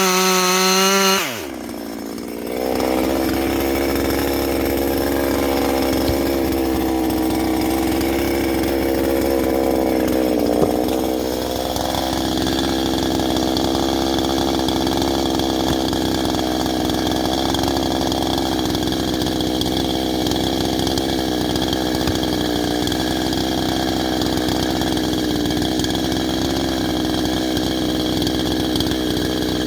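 Ported Husqvarna 350 chainsaw's 49.4 cc two-stroke engine running at high revs, then dropping sharply to idle about a second in as the throttle is let off. It then idles steadily.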